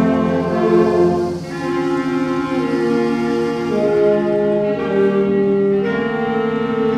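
School concert band of woodwinds and brass playing a slow passage of sustained chords, the harmony moving every second or so. The lowest notes drop out about a second and a half in, leaving the middle and upper voices holding the chords.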